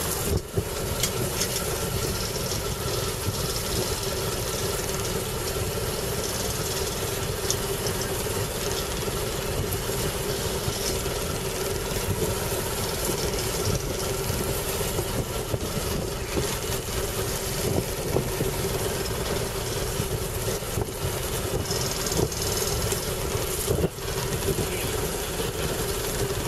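Boat's engine running steadily with an even hum.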